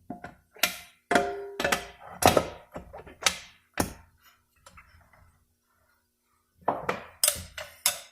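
Metal parts clanking and knocking inside a Dodge 46RE transmission case as the rear reverse drum is shaken up and down to work it into place past the tight new band. Several sharp hits with short metallic ringing come in a quick run over the first few seconds, then again near the end.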